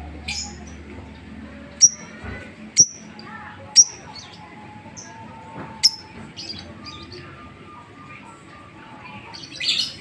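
Fischer's lovebird giving sharp, short, high chirps one at a time, about a second apart, with softer chirps in between and a quick louder run of notes near the end: the clipped 'tik' calling that keepers call ngetik.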